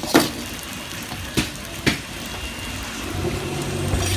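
Metal spatula striking and scraping a wok three times as flat rice noodles sizzle in it. From about three seconds in, a steady low engine-like hum grows louder under the frying.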